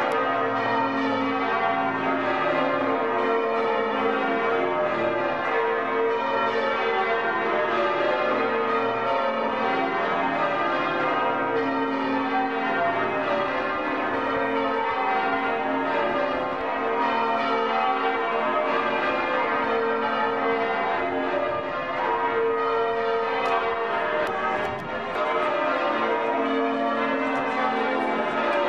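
A peal of church bells rung in changes, each round stepping down the scale and following the last without a break.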